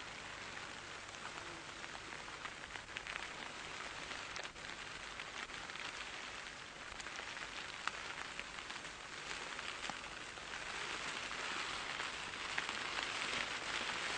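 Steady crackling hiss of outdoor background noise, growing slightly louder toward the end.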